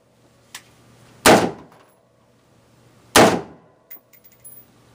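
Two rifle shots about two seconds apart from an AR-15 firing .223 handloads, each a sharp crack with a short echoing tail, with faint clicks between them.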